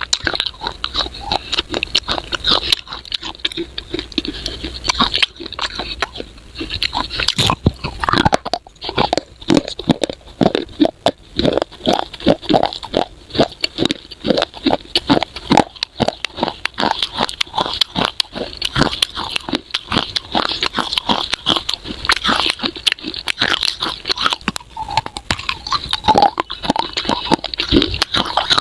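Close-miked biting and chewing of hard baked clay: dense, rapid crunches and crackles, one after another.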